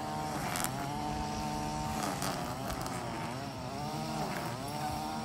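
A motor vehicle engine running steadily, its pitch dipping and rising slightly every second or two, with a few faint clicks.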